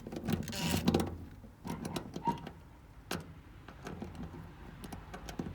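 Irregular light clicks and knocks of small metal hardware and a tool being handled while 8 mm bolts are taken out of a fuel pump access cover, with a short scraping burst in the first second.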